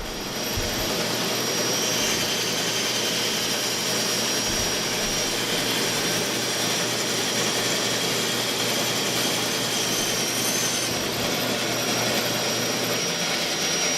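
Band saw running steadily with its newly fitted upper wheel tire, starting up about half a second in for a test cut: an even, continuous machine noise with a faint high whine.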